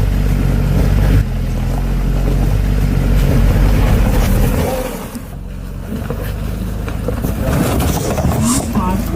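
A Tata Punch car driving, with its engine running low and steady under road and wind noise. The sound changes abruptly about a second in and again near five seconds.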